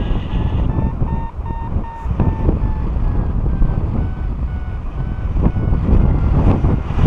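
Airflow buffeting the microphone in flight, a loud low rumble, with a paragliding variometer beeping in short repeated tones. The beep pitch drops about a second in and rises again a second later, the way a variometer signals changes in climb rate.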